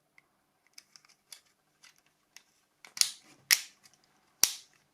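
Small plastic camera cover being fitted onto a Nokia C5's body shell. Light ticks and taps, then three sharp clicks in the second half as it snaps into place.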